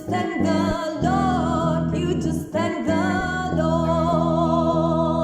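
A band playing the closing bars of a slow soul ballad: sustained chords under a held, wavering melody line with vibrato.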